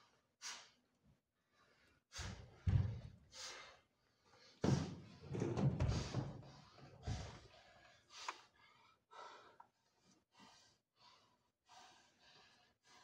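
A person's heavy breaths, gasps and sighs in irregular bursts, with heavier thuds of a body going down onto the stage floor about two and five seconds in.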